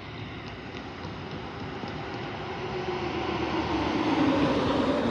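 Ford F-550 ambulance driving past: engine and tyre noise grows louder as it approaches and is loudest about four seconds in. A tone in it drops in pitch as the vehicle goes by near the end.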